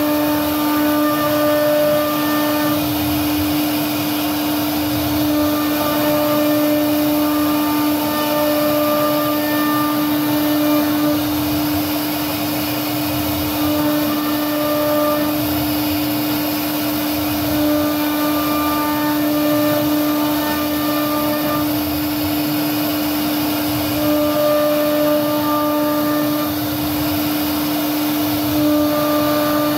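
CNC router spindle running with a steady whine as its bit carves a floral pattern into a wooden door panel. Higher tones come and go in stretches of a few seconds as the cutting head moves through the pattern.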